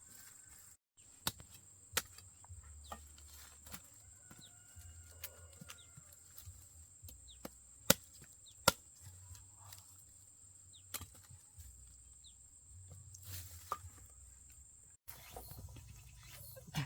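Cassava stems being chopped with a blade: a handful of sharp, irregular chops, the loudest two close together about eight seconds in.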